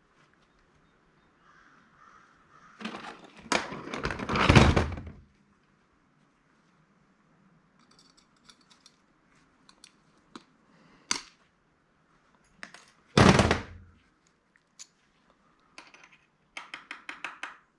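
Parts of a handheld inventory scanner being handled and set down or tossed onto scrap piles. There is a loud clatter about three to five seconds in, scattered sharp clicks, a heavy thunk about thirteen seconds in, and a quick run of about seven clicks near the end.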